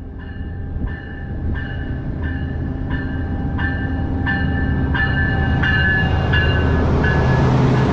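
Siemens Charger diesel-electric locomotive approaching and passing at low speed, its rumble growing steadily louder. Over it a bell rings about every 0.7 s, then stops near the end as the locomotive goes by.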